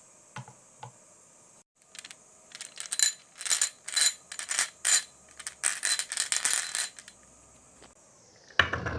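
Marbles clattering down a marble run: two light clicks at first, then a dense run of rattling, ringing clacks for several seconds as they knock along the track pieces and against each other. Music comes in near the end.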